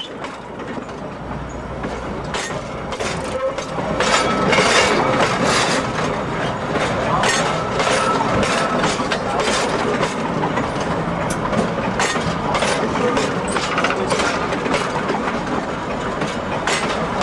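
A train rolling past at rail level, its steel wheels clicking and clacking on the rails over a steady rumble. It grows louder over the first few seconds, then holds steady.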